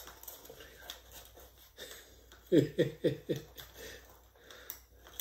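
A man laughing, four short falling "ha" bursts about two and a half seconds in, over faint rustling and clicking of folded paper origami units being handled.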